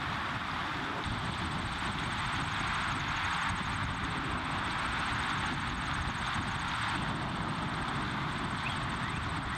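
Steady rushing outdoor background noise with a low rumble. A faint, rapid, high-pitched ticking trill starts about a second in.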